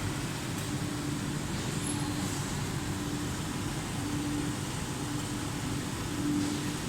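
Busbar bending machine running with a steady mechanical hum and a low tone that pulses on and off about once a second.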